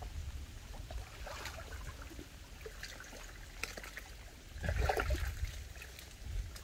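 Shallow muddy water splashing and trickling as hands grope through it for fish, with a louder splash about five seconds in.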